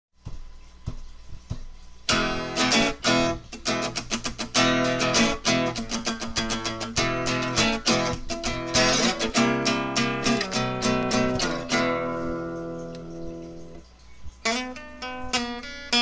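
Intro music played on acoustic guitar, quick picked and strummed notes. About three-quarters of the way through, a chord rings and fades, then the playing starts again.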